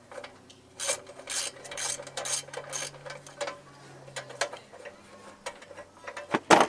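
Socket ratchet wrench clicking in short irregular bursts as it works a bolt on a riding mower's small engine, with one louder knock near the end.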